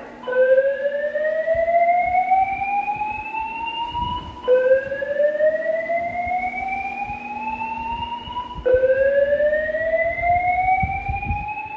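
Fire alarm voice evacuation speakers sounding the slow whoop evacuation tone: three long rising sweeps, each about four seconds, each starting again at the bottom as soon as the last one ends.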